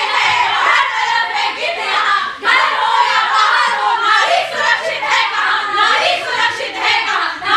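A group of young women's voices calling out over one another, loud and overlapping, with a brief break about two and a half seconds in.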